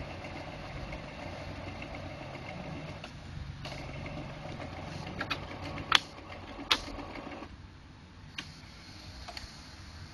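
Brother MFC-J615W inkjet printer mechanism running steadily, with two sharp clicks and then a few lighter ones; the running stops about three-quarters of the way through.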